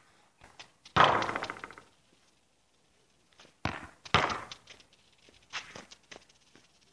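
Football being kicked and bouncing on a grass pitch: a loud thud about a second in with a short rattling tail, two more thuds a little past halfway, then softer taps near the end.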